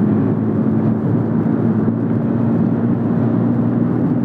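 Scooter engine running at a steady pace while riding, an even hum under rushing wind and road noise.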